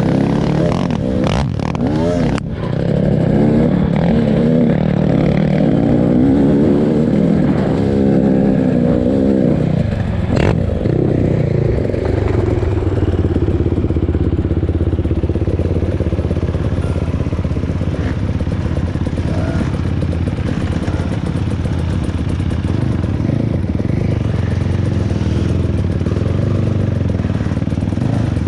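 A motor vehicle engine running, its pitch rising and falling repeatedly over the first ten seconds or so, then settling into a steadier drone. There are a couple of sharp knocks, about two seconds in and again about ten seconds in.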